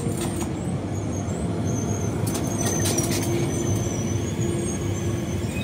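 Elizabeth line Class 345 electric train slowing into a station platform: a steady low rumble of wheels on rail with a steady motor hum, and thin wavering high squeals above it.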